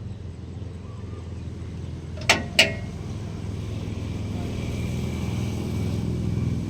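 Diesel engine of a Doosan 190 wheeled excavator running with a steady low drone that slowly grows louder. Two sharp metallic clicks come close together about two and a half seconds in.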